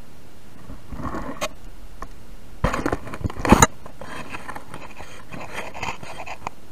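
Irregular scraping and rustling with a few sharp knocks, loudest in a cluster about three seconds in.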